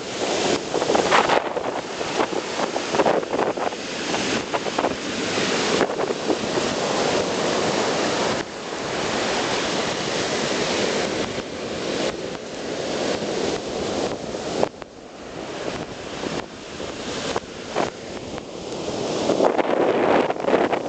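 Rough surf breaking and washing up over a sandy beach, a continuous rushing wash of water, with wind buffeting the microphone. The wash eases off briefly past the middle, then builds again near the end.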